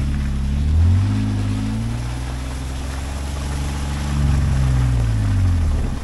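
An off-road 4x4's engine running under load while driving: the revs rise in the first second, hold steady, then drop away near the end, over a steady hiss of tyre and road noise.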